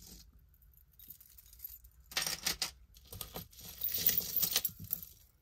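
Metal jewelry clinking and jangling as pieces are handled and set down: a short spell of clatter about two seconds in, then a longer one from about three seconds in.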